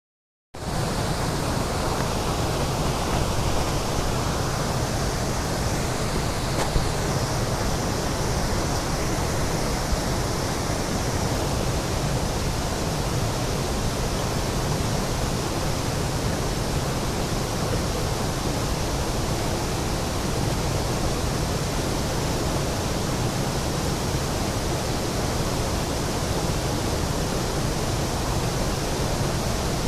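Waterfall running: a steady, loud rush of falling water.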